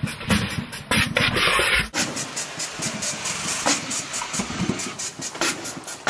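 Rushing hiss of a mist-and-water fountain, with uneven pulses. The sound changes abruptly about two seconds in, losing its low rumble.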